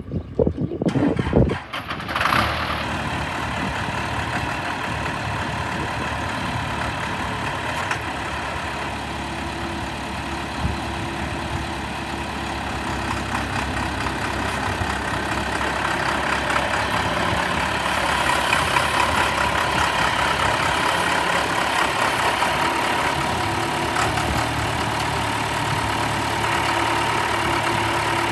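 John Deere 2630 tractor's gasoline engine starting: a couple of seconds of uneven bursts, then it catches about two seconds in and runs steadily at idle, getting a little louder in the second half.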